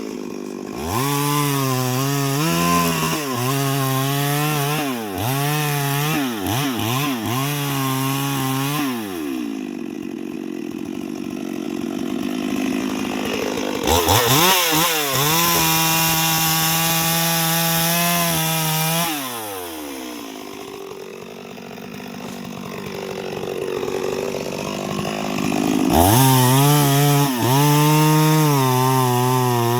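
Two-stroke chainsaw cutting into wood, its engine note rising and sagging as the chain bites in. It drops back to a lower idle about nine seconds in and again after about nineteen seconds, holds a steady high rev for several seconds in the middle, and revs hard again near the end.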